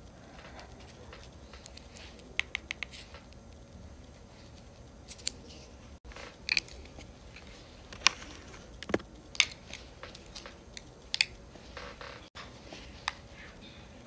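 Sharp clicks and taps from handling a plastic makeup compact and brushes, with a quick run of four clicks about two and a half seconds in and single clicks scattered through the rest, over a faint room background. The background cuts out very briefly twice.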